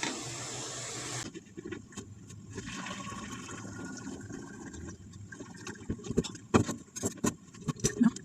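Water running and splashing in the kitchen, changing abruptly about a second in. A string of sharp clinks and knocks of cookware follows in the second half.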